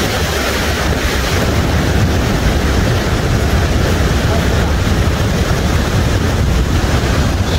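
Steady roar of white water pouring over a river weir and churning below it, with wind buffeting the microphone.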